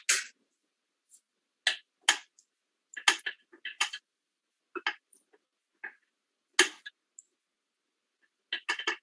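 Silicone spatula scraping and knocking against a stainless steel pan while stirring vegetables in gravy. It comes as about a dozen short, irregular scrapes and taps, with a quick cluster near the end.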